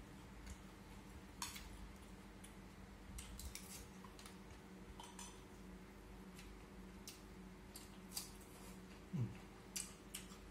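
Chopsticks tapping and scraping against a ceramic rice bowl while eating: faint, irregular clicks every second or so over a low steady hum.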